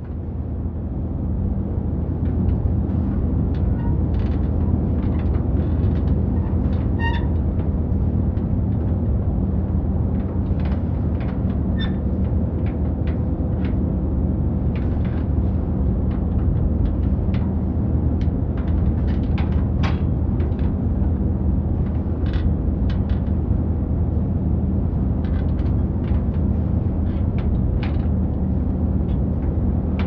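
Steady low rumble of a vehicle driving, heard from inside its cabin, with scattered light rattles and clicks. It fades in over the first second or two.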